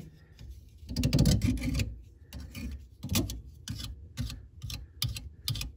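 Short scraping strokes, about two a second, on the cut rim of a black ABS drain pipe, taking off the rough edge left by the saw.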